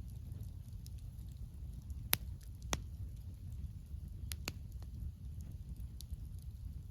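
Campfire of burning wood crackling, with sharp pops about two seconds in and again a little later, over a steady low rumble of flame and soft wind.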